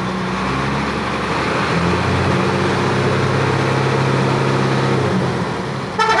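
A bus engine running steadily, its pitch shifting slightly now and then. Near the end a multi-tone telolet horn starts to sound.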